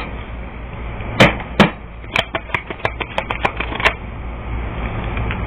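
Tarot cards being handled: a string of sharp clicks and taps, a few well spaced in the first two seconds, then a quick run of lighter clicks, over a steady low hum.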